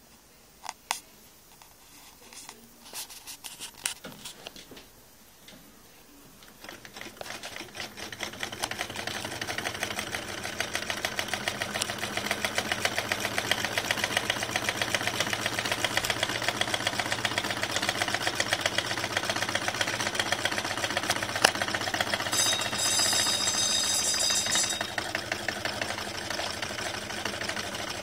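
Small candle-heated Stirling engine running: after a few scattered clicks, a fast, even mechanical clatter starts about six seconds in, grows louder as the engine picks up speed, then settles into a steady rhythm.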